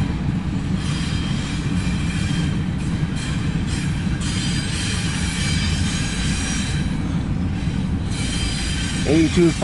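Double-stack intermodal container cars of a CSX freight train rolling past at steady speed: a steady rumble of steel wheels on rail, with a faint, thin, high wheel squeal coming and going.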